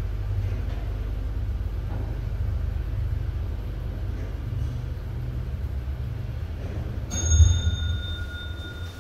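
Low rumble of an original 1980s Hitachi goods lift travelling in its shaft. About seven seconds in there is a thump and a bell-like arrival chime that rings and holds, as the car reaches the floor.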